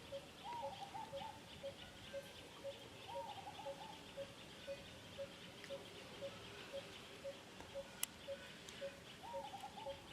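Faint outdoor animal calls: a short note repeated evenly about twice a second, three brief wavering calls that rise and then waver, and a high, rapid trill underneath. There is a single sharp click about eight seconds in.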